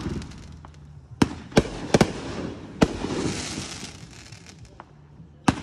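Aerial fireworks going off: a run of sharp bangs from about a second in to about three seconds, with crackling and fizzing from the burning stars between them, and another bang near the end.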